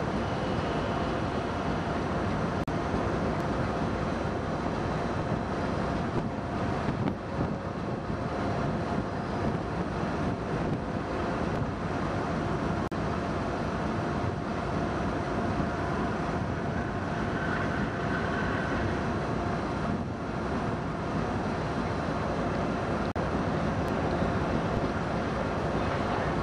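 Soviet 2TE116 two-section diesel locomotive running as it creeps forward slowly: its 16-cylinder diesel engines give a deep, steady rumble with a thin steady whine over it.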